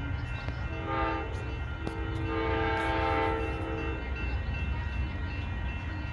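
Amtrak Coast Starlight's diesel locomotive chord horn: a short blast about a second in, then a longer blast that stops about four seconds in, typical of the close of the long-long-short-long grade-crossing signal. A steady low rumble runs underneath.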